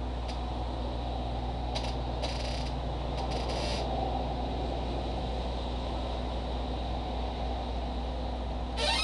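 Steady low background hum and hiss, with a few short scratchy bursts of higher noise in the first four seconds.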